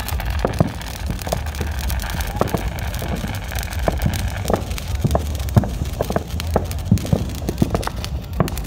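Fireworks popping and crackling irregularly, two or three small sharp pops a second, over a steady low rumble.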